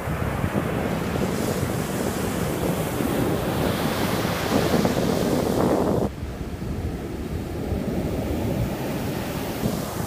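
Atlantic surf breaking and washing up the beach, with wind buffeting the microphone. The wash swells to its loudest around the middle, then drops off suddenly about six seconds in.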